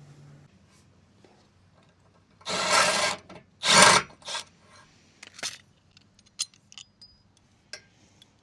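Two rasping strokes of a part being scuffed by hand, the second shorter, followed by scattered light clicks and taps of handling.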